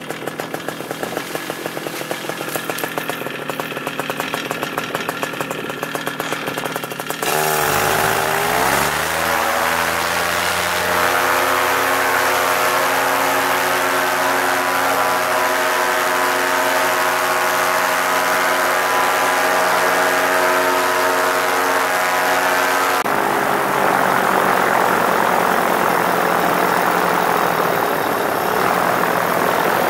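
Paramotor engine and propeller idling, then throttled up with a quick rise in pitch about eight seconds in, and held at full power for the launch run and takeoff. Near the end the sound turns rougher and noisier.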